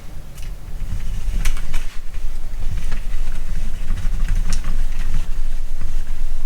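Low rumbling handling noise from a camera being mounted and moved on a tripod, with a few sharp clicks from the tripod legs being extended and locked.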